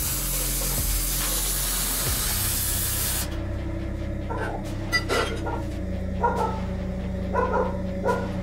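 MIG welding arc on steel: a steady frying hiss for about the first three seconds, cutting off abruptly as the weld stops. Background music with steady held notes plays underneath and carries on alone after the arc stops.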